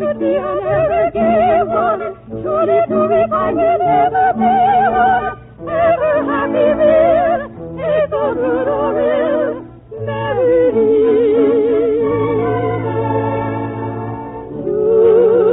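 A soprano singing in operatic style with wide vibrato, in phrases broken by short breaths, over held orchestral notes. The sound is a narrow, dull-topped old radio recording.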